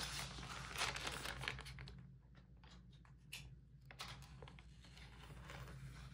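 Clear plastic shrink wrap being slit with a small utility knife and torn off an album's plastic case, crinkling and tearing. The crinkling is busiest in the first two seconds, thins to a few clicks in the middle, and picks up again near the end.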